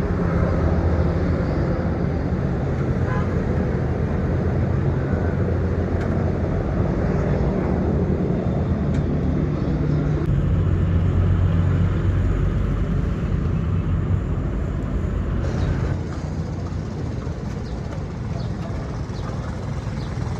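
A vehicle engine running steadily, a low even drone that drops a little in level about sixteen seconds in.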